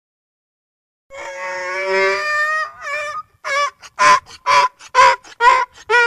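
A donkey braying: about a second in, a long drawn-out high note, then a rhythmic run of short, loud calls, about two a second.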